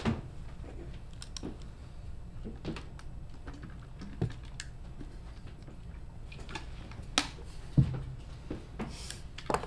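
Scattered, irregular light clicks and taps from people handling pens, papers and small objects at desks, a few sharper knocks among them, over a steady low room hum.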